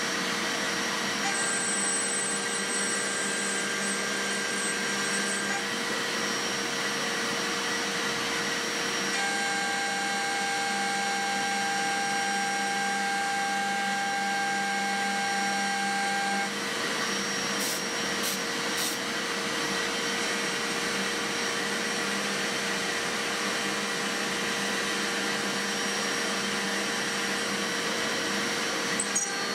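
Home-made CNC milling machine's spindle running as an end mill cuts a pocket in steel on a finishing pass: a steady whine over a cutting hiss. A higher steady tone comes in twice, for about four and about seven seconds, and a few sharp ticks sound about halfway through.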